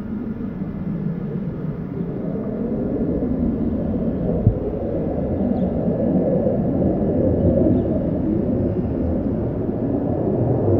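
Fighter jet engine rumbling overhead at a distance, a steady low roar that slowly grows louder as the jet approaches.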